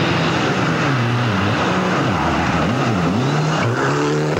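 Rally car engine at full effort, its revs rising and falling sharply several times in quick succession, then holding a steady high note near the end, over tyre and road noise.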